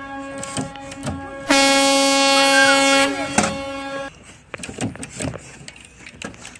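A steady, loud horn-like tone at one pitch, louder for a second and a half near the middle, cutting off about four seconds in. Scattered light clicks and knocks follow.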